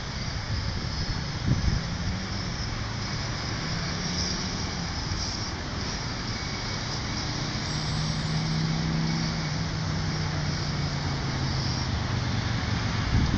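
Road traffic: cars driving past with steady tyre and engine noise, and a low engine drone that grows louder in the second half.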